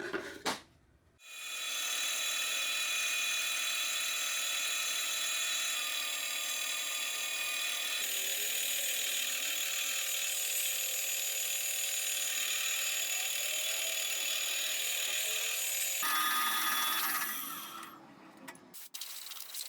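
A motor-driven workshop tool running steadily with a high, many-toned whine for about fifteen seconds, then dying away, with a few knocks near the end.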